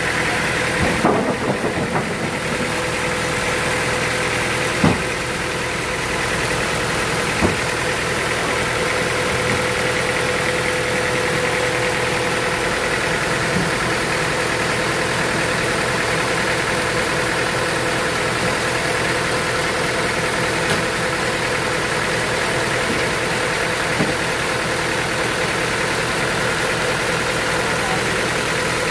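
Sawmill machinery running steadily with a constant whine, with a few sharp knocks in the first several seconds.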